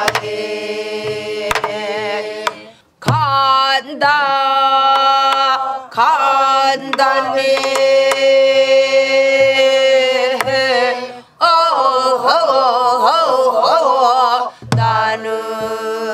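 A group sings a southwestern Korean (Namdo) folk song with long held notes and heavy wavering vibrato. A buk barrel drum struck with a stick marks the rhythm with a few sharp strokes.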